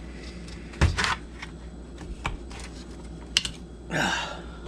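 Screwdriver prying at a stubborn part on a Stihl MS250 chainsaw: scattered sharp clicks and knocks of the tool against the saw's parts, the loudest about a second in and again past three seconds, with a short rasp near the end.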